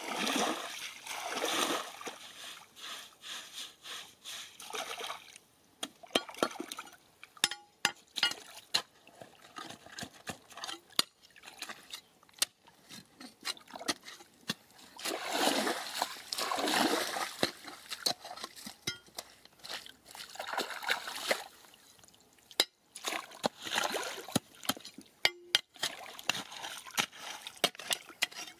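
Water splashing and sloshing in several bouts as a woven basket of gravel is dipped and shaken in a shallow stream. Between the bouts, short sharp clicks and scrapes of stones and a digging tool in the wet gravel.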